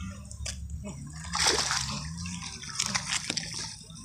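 A hooked peacock bass thrashing in shallow water at the bank as it is landed, splashing in irregular bursts, the biggest about a second and a half in.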